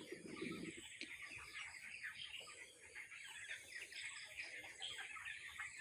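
A flock of three-week-old broiler chickens peeping and chirping: many short, high calls overlapping without pause.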